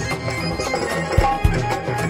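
Live devotional bhajan music with drums beating out a rhythm under sustained melodic notes.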